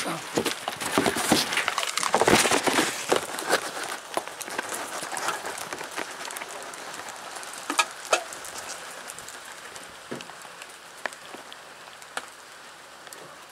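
Rain pattering, with scattered single sharp ticks of drops. Louder rustling and knocking noise in the first four seconds.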